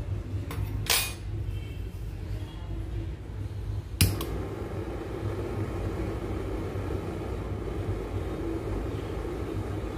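A light metallic click about a second in, then a sharp click about four seconds in as a handheld butane torch is lit, followed by the steady rush of its flame heating a piece of scrap silver on a charcoal block to melt it. A steady low background hum runs underneath.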